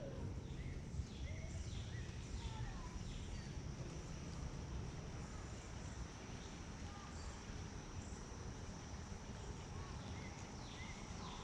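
Outdoor creekside ambience: a steady high-pitched insect drone with scattered short bird chirps over a low steady rumble.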